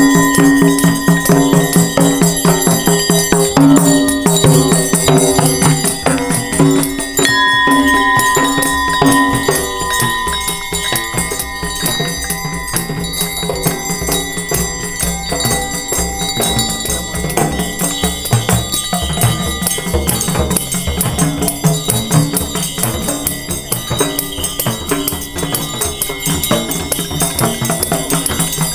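Hand drums beaten in a fast, continuous rhythm, with the jingle and shake of tambourines or rattles over them; louder for the first ten seconds, then settling a little.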